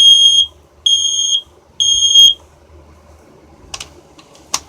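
Kidde i9040 ionization smoke alarm sounding three loud, high-pitched beeps about a second apart, one round of the three-beep (code 3) alarm pattern, then stopping. A couple of sharp clicks follow near the end.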